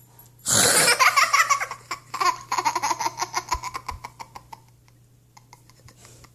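A sharp, noisy imitation of a dog's sneeze, followed at once by a young child's rapid, high-pitched giggling laughter that fades out after a few seconds.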